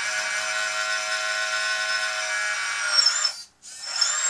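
Hydraulic pump of a Kabolite K966 RC wheel loader giving a steady whine as it drives the lift arm up. It cuts off about three seconds in and starts again briefly near the end.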